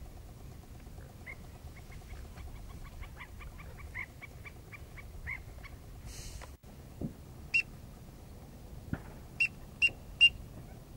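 Duck calls: a run of short, high peeping notes about three a second, then, after a pause, four louder sharp calls near the end.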